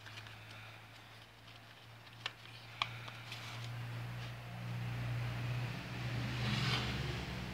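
A low steady hum that grows louder in the second half, with a couple of light clicks a little over two seconds in as the cardboard model is handled.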